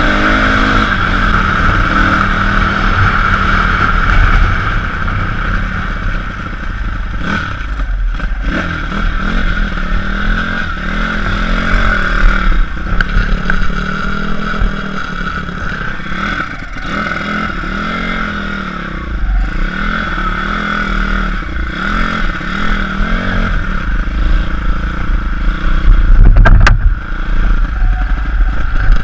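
Pit bike's single-cylinder engine running under riding, revving up and down again and again as it is ridden over rough ground. A loud bump about 26 seconds in.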